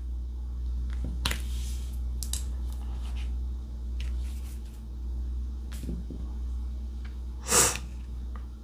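A diamond painting drill pen picks up resin drills from the tray and presses them onto the sticky canvas, making a few soft, scattered clicks over a steady low hum. A brief, louder rustling sound comes about a second before the end.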